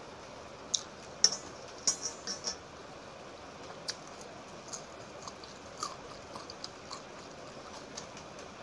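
Close-miked wet eating sounds of panta bhat, rice soaked in water, eaten by hand from a steel plate: scattered irregular smacks and squelches of fingers in the watery rice and of mouthfuls. They are busiest between about one and two and a half seconds in.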